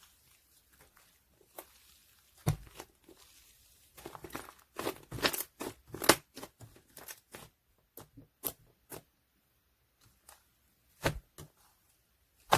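Hands squeezing, poking and stretching slime, giving irregular sticky clicks and small popping crackles. A quick run of pops comes in the middle, with scattered single clicks around it.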